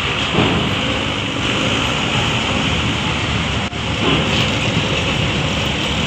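Coach bus engine running as the bus drives slowly past close by: a steady, dense rumble and hiss.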